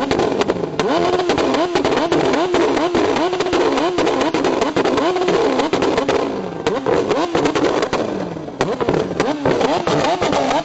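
Engine with a very loud exhaust revved again and again in quick throttle blips, its pitch rising and falling about twice a second, with sharp crackles and pops from the exhaust. The revving eases briefly about six seconds in, then picks up again.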